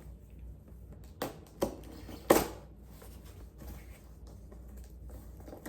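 Pin packaging being handled: three sharp clicks in about a second, the third the loudest, then faint rustling.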